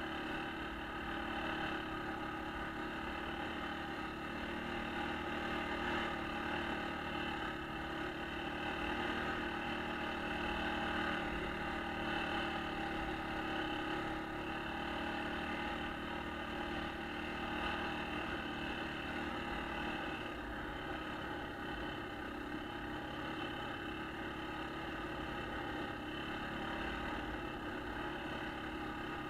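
1996 Yamaha Kodiak ATV's single-cylinder four-stroke engine running at a steady, even speed while the quad rides along a snowy trail.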